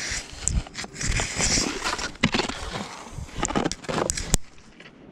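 Jacket fabric rustling against the camera while skis and boots crunch and scrape in snow, in irregular bursts, with a sharp click a little over four seconds in.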